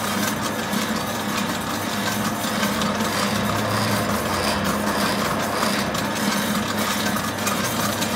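Commercial planetary mixer running steadily with an empty bowl: an even motor-and-gearbox hum with a steady low tone and no change in speed.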